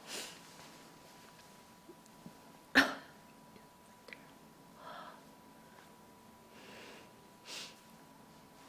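A young woman burping after drinking something carbonated: one short, sharp, loud burp about three seconds in, with softer breaths and small throat sounds around it.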